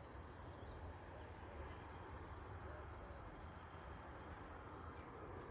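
Quiet woodland ambience: a steady hiss with a low rumble underneath and a few faint, brief bird chirps.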